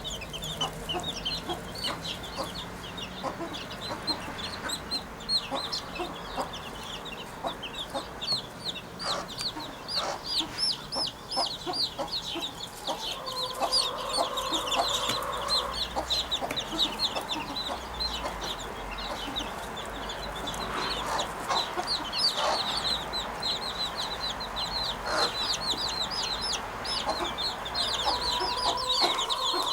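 Birds chirping in a continuous stream of short, high, repeated calls that sound rather like clucking. A steady hum joins in for a few seconds around the middle and again near the end.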